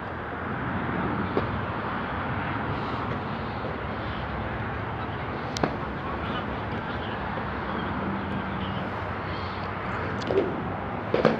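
Stunt scooter rolling over paving tiles with a steady rumbling hiss, a sharp knock about halfway through and a few knocks near the end as it hits the tiles.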